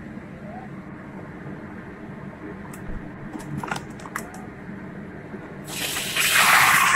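Marinated raw chicken tipped from a bowl into oil in a wok, breaking into a sudden loud sizzle near the end. Before that, only a low background hiss with a few faint clicks.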